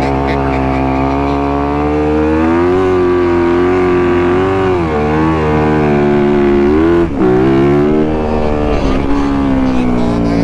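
Dirt bike engine held at high revs, its pitch easing up and down, with a brief throttle chop about seven seconds in.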